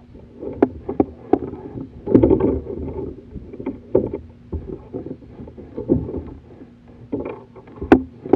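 Irregular knocks and thumps on kayak hulls, with water splashing from a hooked bull red drum thrashing alongside as it is landed.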